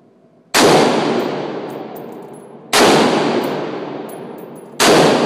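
Three single gunshots from an AR-15-style rifle, about two seconds apart, each followed by a long echoing decay from the indoor range, with faint metallic clinks after each shot.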